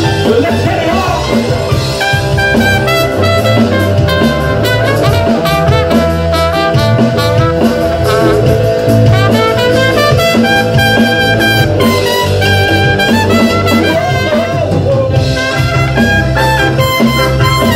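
Live reggae band playing, with a trumpet carrying the melodic lead over electric guitar, bass and drums.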